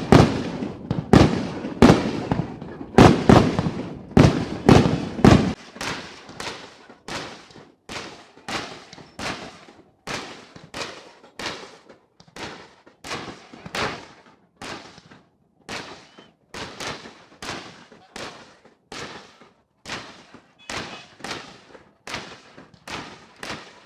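A rapid series of fireworks shells bursting. The bangs are loudest and packed closest together for the first five seconds or so, then carry on fainter at about two a second.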